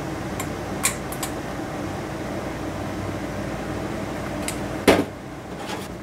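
Steady fan-like hum with a few light clicks in the first second, then a single loud clunk about five seconds in as a small stainless steel bowl is set down on the metal stovetop; the hum is quieter after it.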